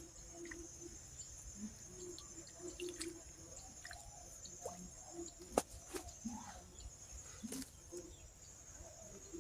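Faint outdoor rural ambience: a steady high insect drone, scattered short low calls, and two sharp clicks, one about five and a half seconds in and one near the end.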